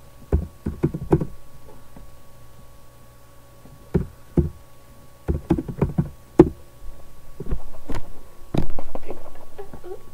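Irregular knocks and taps of typing on a computer keyboard, in short bursts of keystrokes, followed by a heavier thump near the end.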